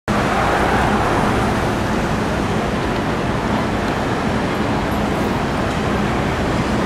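Steady city street traffic noise, a continuous rumble and hiss of passing vehicles with no siren sounding.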